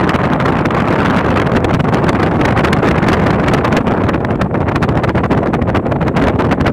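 Loud, steady wind noise buffeting the microphone, over the low rumble of a boat afloat.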